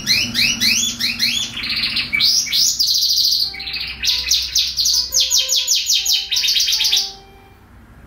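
Domestic canary singing: quick repeated rising notes, then fast rolling trills, with a short break in the middle; the song stops abruptly about seven seconds in.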